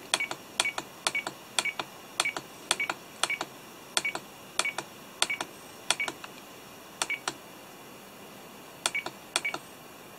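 Button presses on a FrSky Taranis radio transmitter while scrolling through its setup menu: a quick run of short clicks, often in pairs, each with a brief high beep, pausing for about a second and a half near the end.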